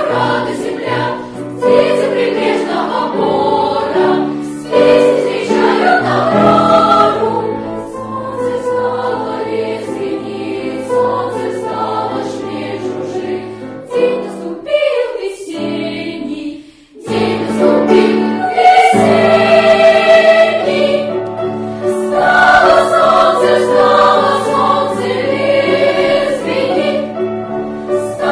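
Children's choir singing a song in Russian. The singing drops off briefly a little past halfway, then comes back louder.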